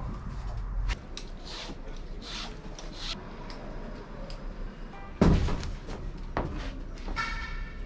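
Knocks and clunks of a dirt bike being handled inside a van's cargo area, with a heavier thump about five seconds in.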